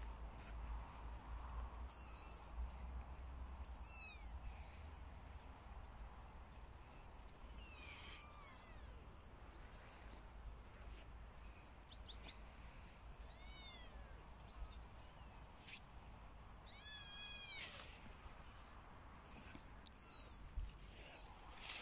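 Kittens mewing: about five separate high, thin mews, each rising then falling in pitch, spread over the stretch.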